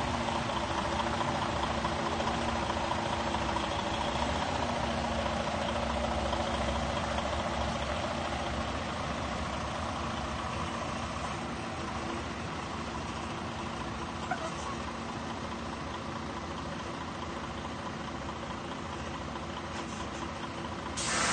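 Semi-truck's diesel engine running at low revs while it reverses slowly, a steady hum that fades gradually as the truck backs away. A sudden loud burst of noise cuts in at the very end.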